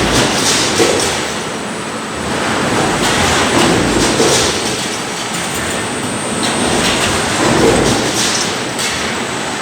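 Heavy industrial machinery running with a steady clattering rumble that swells about every four seconds, with occasional sharp clicks.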